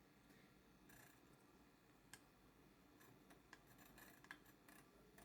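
Near silence, with a scattering of faint, short clicks and taps, several close together in the second half.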